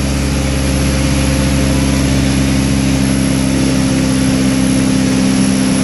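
Cummins 4BT 3.9-litre four-cylinder turbodiesel running hard under heavy load on an engine dyno. It is a steady, loud drone as the dyno slowly pulls its speed down from about 2050 to just under 2000 rpm.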